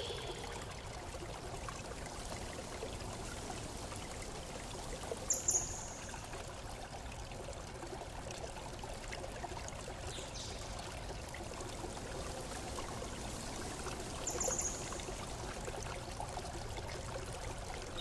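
Steady rushing sound of running water, like a stream, with a couple of brief high-pitched blips about five and fourteen seconds in.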